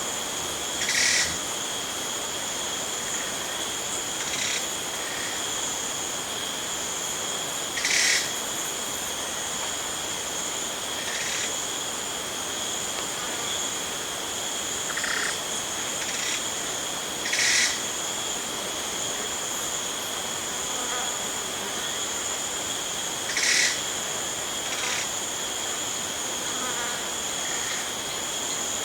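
Jungle ambience of crickets and other insects keeping up a steady, high-pitched trill, with a short, louder animal call breaking in every few seconds, four of them standing out clearly.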